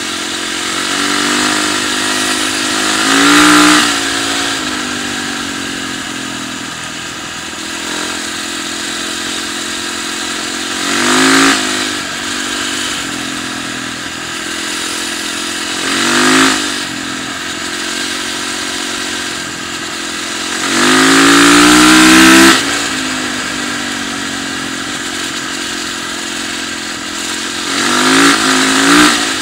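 Yamaha dirt bike engine running steadily under way, revving up five times, with the longest and loudest rev about three-quarters of the way through.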